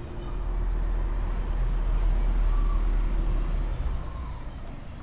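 A car driving along the street, engine and tyre rumble swelling to its loudest around the middle and then easing off.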